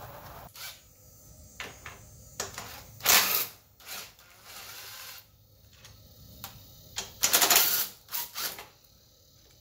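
Cordless impact driver hammering 14 mm foot-bracket bolts loose in two short rattling bursts, about three seconds in and again about seven seconds in, the second one longer. Between them come clicks and knocks of the socket and tool being handled.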